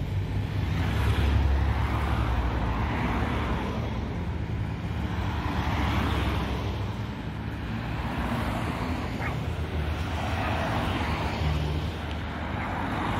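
Race convoy vehicles, a motorcycle and then a string of cars, driving past one after another through a roundabout. Engine and tyre noise swells and fades with each passing vehicle over a steady low hum.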